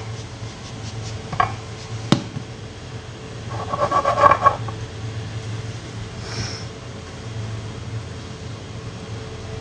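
A spatula scraping and clicking against a glass and a ceramic mug as thick whipped coffee foam is scooped from one into the other, with two sharp clicks in the first two seconds and a short buzzing tone about four seconds in, over a steady low hum.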